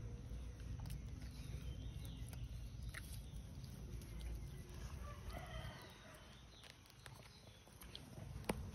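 Faint outdoor ambience with a steady low rumble, a few faint animal calls, and one sharp tap near the end.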